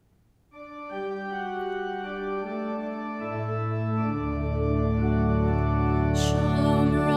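Organ music begins about half a second in with held chords, gradually building as deeper bass notes come in partway through.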